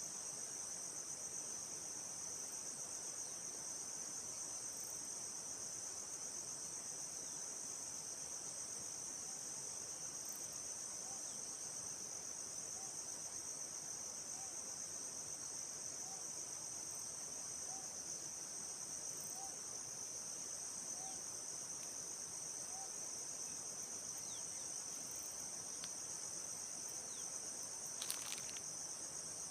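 A steady, high-pitched forest insect chorus, crickets or cicadas, trilling without pause. In the middle a faint short call repeats about every second and a half. A brief crackle comes near the end.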